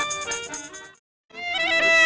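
Instrumental music with a melody of held notes fades out about halfway through. After a brief silence, another stretch of instrumental music fades in.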